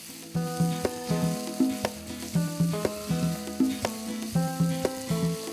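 Sliced onions, green chillies and curry leaves sizzling in oil in a frying pan, stirred with a wooden spatula that knocks against the pan now and then. Background music with a repeating bass pattern plays over it.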